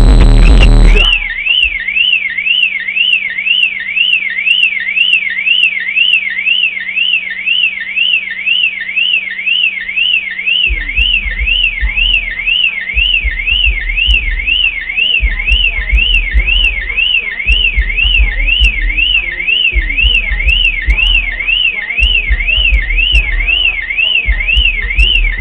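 Suzuki Vitara car alarm siren wailing, its tone sweeping up and down about twice a second without a break. It starts about a second in as the music cuts off. Low, deep pulses come and go under it from about halfway through.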